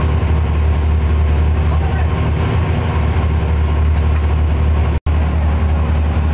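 Fishing trawler's diesel engine running at a steady low drone, with a brief dropout about five seconds in.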